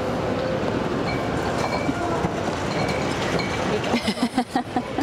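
Steady din of a busy exhibition hall: many distant voices and general hall noise blended together. About four seconds in, a short burst of laughter, about six quick pulses.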